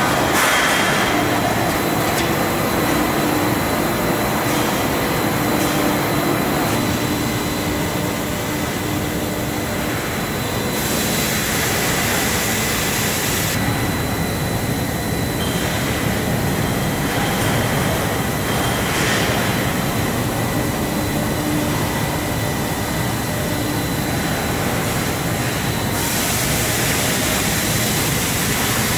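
Steady industrial machinery noise of a steel pipe mill line: steel strip running off the coil through guide rollers and winding around a horizontal spiral accumulator, with a thin constant whine over the rumble and hiss.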